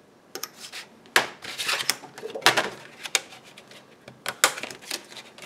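Hobby knife drawn along a ruler, cutting a thin styrene plastic sheet into a strip: a series of short, scratchy strokes with sharp clicks, several times over.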